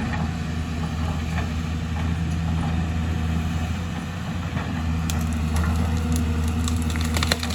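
Excavator's diesel engine running steadily, dipping briefly about four seconds in and then picking up again. A quick run of sharp clicks and clatter comes near the end.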